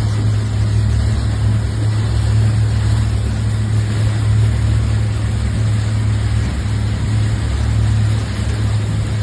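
A motor running steadily, with a constant low hum under a wash of noise.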